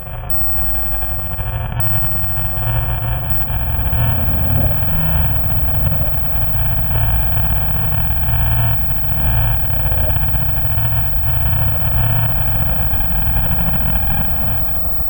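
Deep, sound-designed monster growl: a steady low rumble with layered tones above it, running on without a break.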